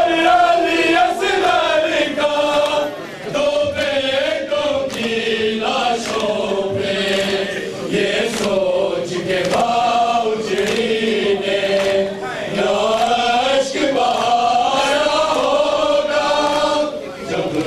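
A group of men chanting a noha, the Muharram lament, together in a sustained melody, with regular sharp beats of hands striking chests in matam.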